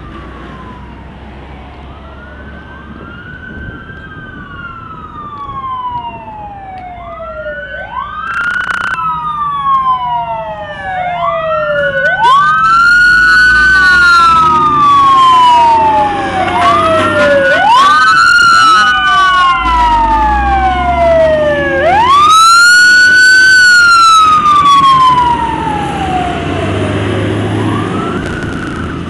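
Fire truck sirens wailing, often two at once, each sweep rising quickly and sliding slowly back down, repeating every four seconds or so, over the rumble of the trucks' engines. The sirens grow much louder as the trucks come close and pass, then fade near the end.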